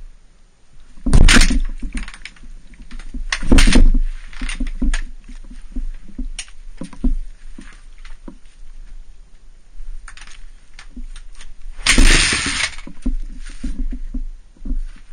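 Honda CRF250R four-stroke single being kick-started three times without firing. Each kick is a short loud burst about half a second long, the second about two and a half seconds after the first and the third some eight seconds later, with lighter knocks in between. The engine will not catch, which the rider blames on bad 86-octane gas.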